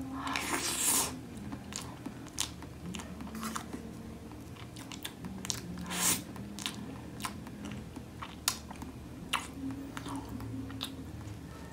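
Close-miked eating of cake: a forkful of mango graham cake taken into the mouth and chewed, with soft wet mouth clicks and smacks. The loudest bites come in the first second and again about six seconds in.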